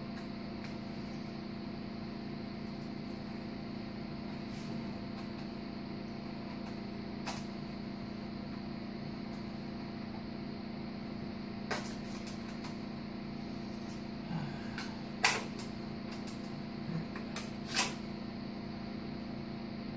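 A few sharp metallic clicks and taps from a screwdriver and screws on the sheet-metal chassis of a satellite receiver being screwed back together, the loudest two in the second half, over a steady low hum.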